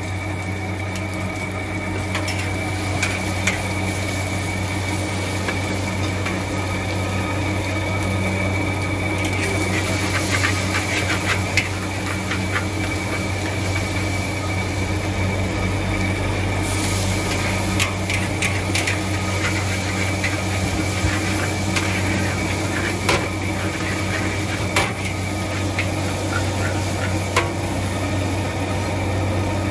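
Metal spatula scraping and knocking against a wok during stir-frying, over a steady low hum. The scrapes and clanks come in irregular runs, busiest for several seconds from about a third of the way in.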